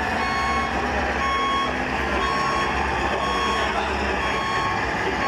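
Reversing beeper on a radio-controlled model construction vehicle, beeping repeatedly over a steady low engine-like hum.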